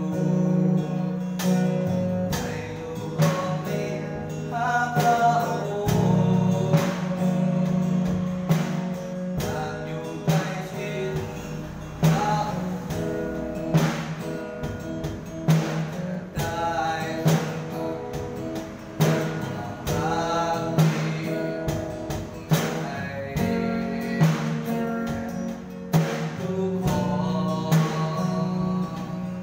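A slow Christian worship song: a voice singing over plucked guitar, with sustained low notes underneath.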